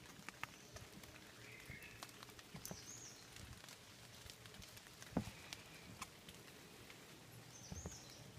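Faint wet-forest ambience: a light patter of dripping rain with scattered ticks and one sharper knock about five seconds in, and a few short high bird calls, one about three seconds in and another near the end.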